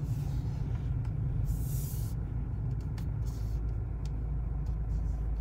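Car driving, heard from inside the cabin: a steady low engine and road rumble, with a brief hiss about a second and a half in.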